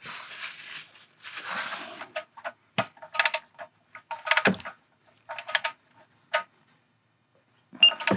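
Digital torque wrench ratcheting in short strokes on an oil drain plug: small groups of quick metallic ratchet clicks, with a short electronic beep near the end.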